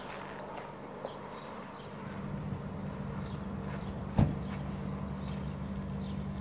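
Engine of a c1914 James ladies model tricycle running steadily as it is ridden, with a low hum that grows louder about two seconds in. A single sharp knock sounds just past four seconds.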